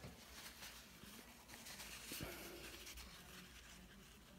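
Faint rustling of a paper towel and small handling sounds on a desk mat, with a soft tap about two seconds in.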